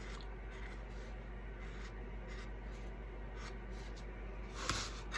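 Tip of an acrylic paint marker scratching and rubbing in short strokes along the edge of a painted craft piece, over a steady low hum. A brief louder rustle comes near the end.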